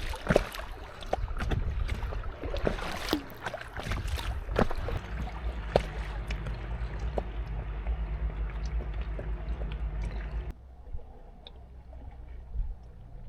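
Water splashing and slapping against an inflatable kayak as it rides boat-wake waves, over a low rumble of wind on the microphone. The splashing cuts off suddenly about ten and a half seconds in.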